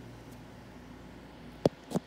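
A person's mouth and throat between burps: a faint steady hum at first, then a sharp click about one and a half seconds in and a short burst at the very end, as air is gulped down to bring up the next burp.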